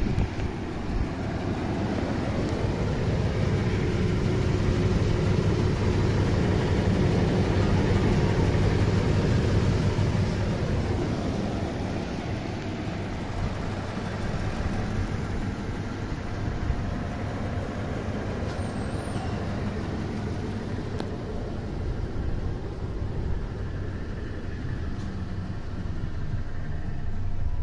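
Toyota Tundra pickup's engine idling steadily with the hood up. The hum is a little louder in the first ten seconds or so, then somewhat softer.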